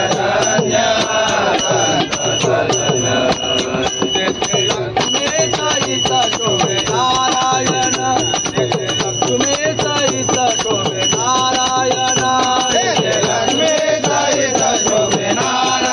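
Men singing a Marathi abhang, a Varkari devotional song, with long held notes, over a steady rhythmic clicking of small percussion.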